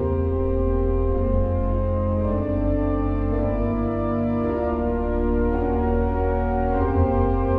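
Organ music: slow, sustained chords over a deep held bass, changing every second or so.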